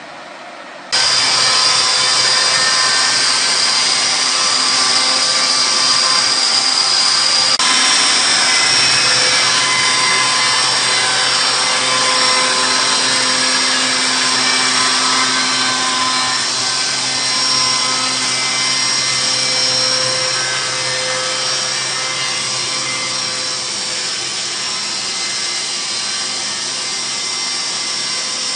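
A 10 hp electric chainsaw mill running its chain through a pine log: a steady, loud cutting noise with a motor and chain whine. A quieter hum in the first second gives way suddenly to the full cutting sound.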